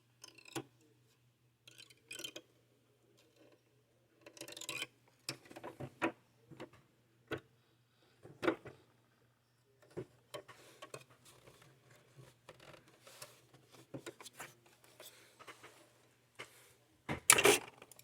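Irregular small clicks, taps and rubbing from handling a sewing machine and its thread, with a louder clatter near the end.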